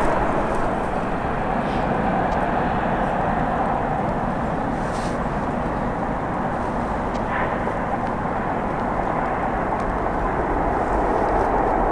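Jet airliner engines, a steady, even noise with no sharp events.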